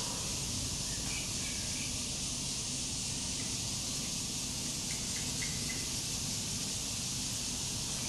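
Steady high-pitched drone of insects, with a few faint short bird chirps and a low rumble beneath.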